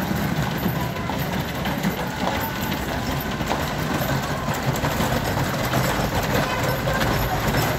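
Wooden horse-drawn wagon's spoked wheels rumbling and rattling steadily over cobblestones, with the horse's hooves clopping as it passes.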